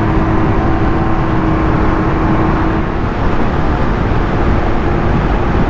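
Can-Am Ryker three-wheeled motorcycle on the move: steady engine and wind noise with a dense low rumble. A faint steady hum fades out about three seconds in.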